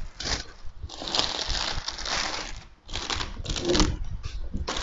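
Plastic bag rustling and crinkling as it is pulled off a cardboard box, in irregular bursts with a short pause about halfway through.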